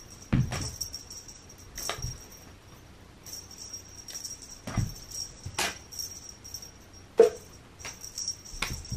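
Cats playing with a toy on a carpet: scattered soft thumps and knocks of paws and bodies landing and batting. One short, sharp sound comes about seven seconds in, the loudest moment.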